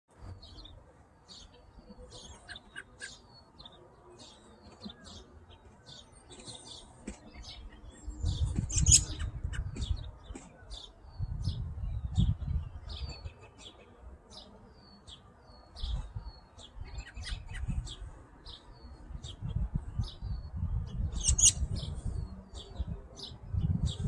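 Small birds chirping: many short, quick chirps repeated through the whole stretch. From about eight seconds in there are bursts of low rumble, louder than the chirps.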